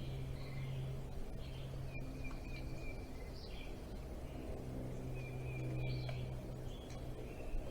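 Birds chirping and whistling in short, scattered calls over a steady low hum.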